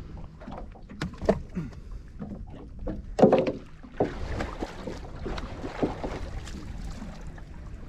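Scattered knocks and clicks around a small fishing boat over a low steady rumble; the loudest knock comes about three seconds in, with another a second later.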